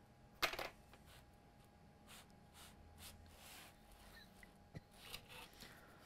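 Near-quiet workbench with small handling noises: a brief clatter about half a second in, then faint rustling and a single sharp click near the end.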